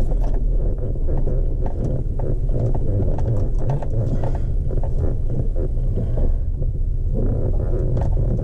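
Cab noise of a Chevy Colorado ZR2 pickup driving slowly on a dirt trail: a steady low rumble with frequent small knocks and crackles as the tyres roll over loose dirt and rocks.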